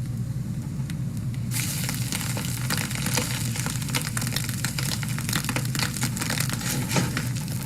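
Food frying in a pan: a steady sizzle with frequent small crackling pops, growing brighter and fuller about a second and a half in.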